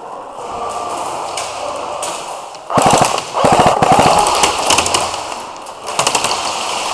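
Airsoft electric gun (AEG) firing on full auto: three bursts of rapid clicking shots, a short one, then a longer one of nearly two seconds, then another short one.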